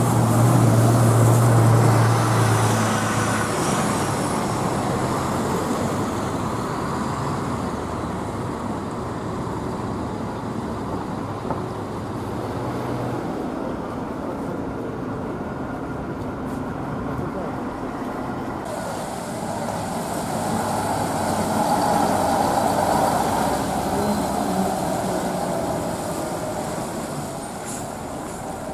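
Diesel city buses running and manoeuvring over steady traffic noise, with a strong low engine hum in the first few seconds and an articulated Ikarus bus engine pulling louder about twenty seconds in.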